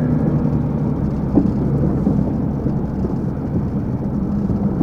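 Motor vehicle engine running steadily, a low drone, with a single light knock about a second and a half in.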